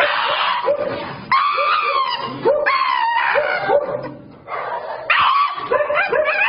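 A dog yipping and whining in a quick run of short cries, each rising in pitch, with a brief lull about four seconds in.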